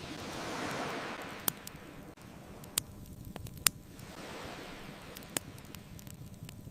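Ocean waves washing onto the shore, swelling and fading twice, with four sharp pops from a crackling wood fire, the loudest near the middle.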